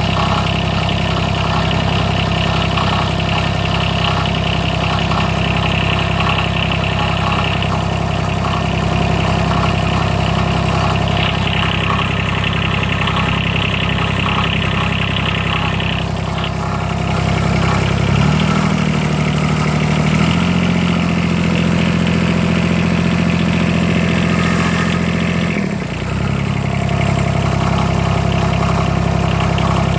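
John Deere 332's Yanmar diesel engine running at idle with a rattling, grinding noise of unknown origin. Just past halfway it is revved up in two steps, held higher for several seconds, then dropped back to idle.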